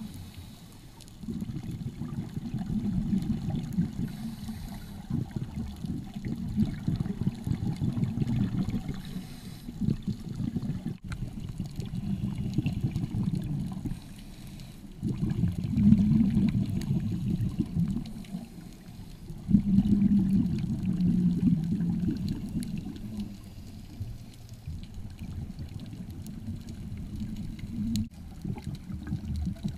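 Underwater sound heard through a camera housing: a low, muffled gurgling rumble of scuba exhaust bubbles, coming in surges of a few seconds with quieter gaps between breaths.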